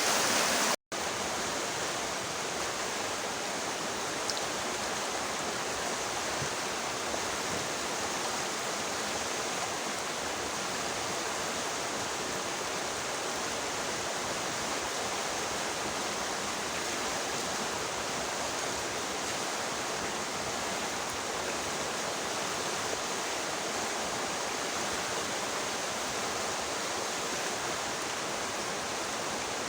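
Steady rushing of flowing river water, an even hiss that doesn't let up, broken only by a brief cut to silence just under a second in.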